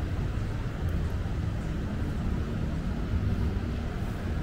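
Steady low rumble of street traffic, with no distinct event standing out.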